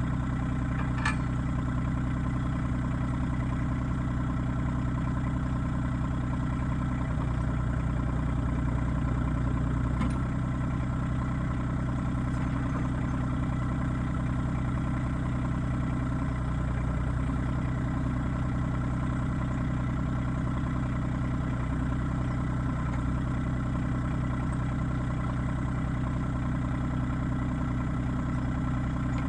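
RK25 compact tractor's engine running steadily at an even speed while the outriggers and backhoe are lowered to the ground, with a faint click about a second in and another about ten seconds in.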